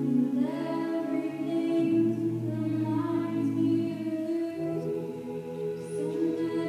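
Mixed-voice a cappella group singing, with held chords over a low bass line that drops to a lower note about two seconds in and moves up again a little past the middle.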